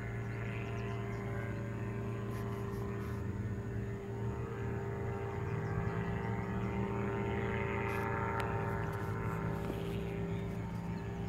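Powered parachute's engine and propeller droning overhead in flight, a steady hum whose pitch shifts slightly about four seconds in.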